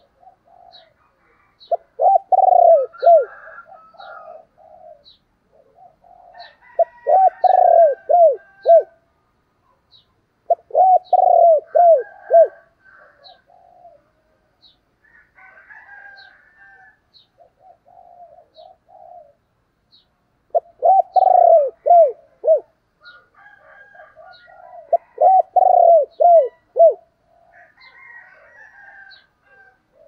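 Spotted dove cooing: five loud phrases of several quick coos each, spaced a few seconds apart, with quieter cooing in between. It is a caged decoy dove's calling song, meant to draw in wild doves.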